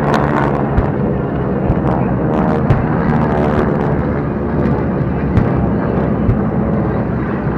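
Radial-engined propeller warbirds droning overhead as they make their passes, with a few sharp pops and thumps from the pyrotechnic ground explosions of the mock raid.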